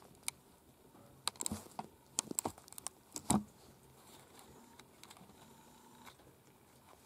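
Handling noise from gloved hands working on a skinned animal's hide: a scatter of small sharp clicks and crinkles over the first three and a half seconds, the loudest just after three seconds, then only faint room hum.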